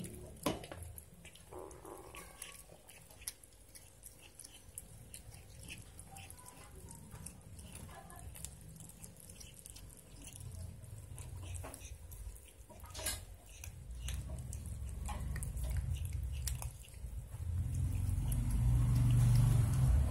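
Kitten chewing and tearing at a piece of raw chicken: scattered wet clicks and smacks, with a low rumble that grows louder over the last several seconds.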